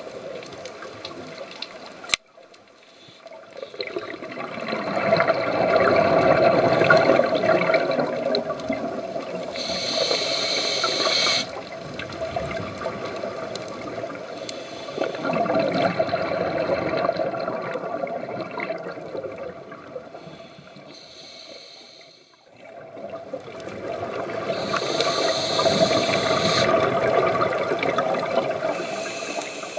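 Scuba diver's breathing through a regulator underwater: exhaled bubbles gurgle and rush in three long swells of several seconds each, with a short higher hiss twice.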